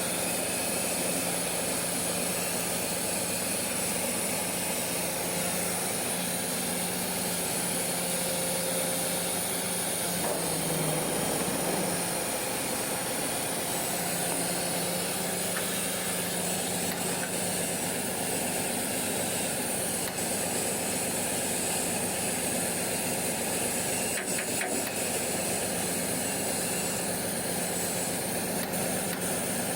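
Electric arc welding: a steady hiss over a constant machine hum.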